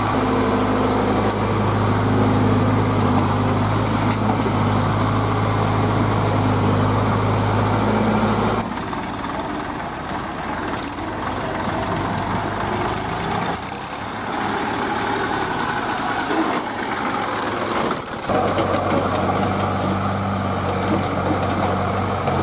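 Diesel engine of a Tata Hitachi EX70 mini excavator running steadily at idle. For about ten seconds in the middle the steady engine note gives way to a quieter, noisier engine sound, then the steady note returns.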